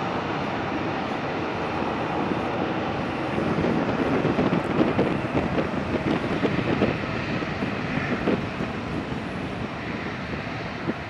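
Twin rear-mounted Rolls-Royce AE 3007 turbofans of an Embraer ERJ-145 running up for takeoff: a steady jet roar that grows louder and rougher about three and a half seconds in as power comes on for the takeoff roll, then eases slightly near the end as the aircraft moves away.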